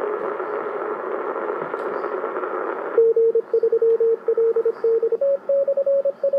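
Morse code received on a President Lincoln II 10-metre transceiver, heard through its speaker: band hiss with a faint tone, then about three seconds in a strong station's keying comes through as a beeping tone and the hiss drops away. A couple of seconds later the beeps step up slightly in pitch.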